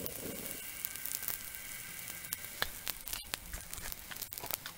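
Pancake batter sizzling on an oiled cast-iron Dutch oven lid turned upside down as a griddle over a burner, with scattered light pops.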